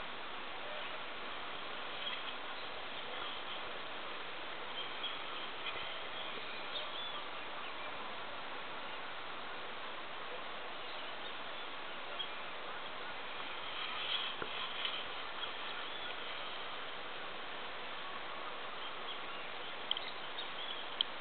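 Steady outdoor hiss with faint, short high chirps now and then, and two sharp clicks near the end.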